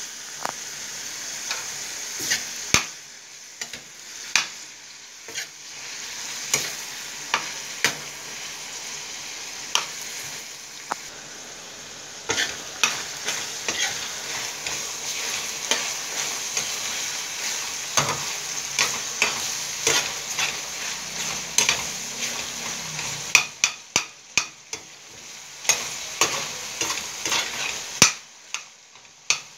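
Ground pork sizzling as it fries in a stainless steel pan, with a steady hiss. A metal spoon stirs it, clinking and scraping against the pan over and over, more thickly near the end.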